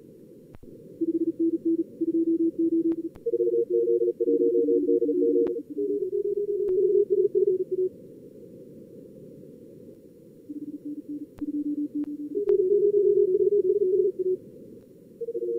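Simulated Morse code (CW) contest signals from a logging program's practice mode: fast keyed beeps at two or three different low pitches, sometimes overlapping, over a steady hiss of band noise. There are short pauses of hiss alone and a few faint clicks.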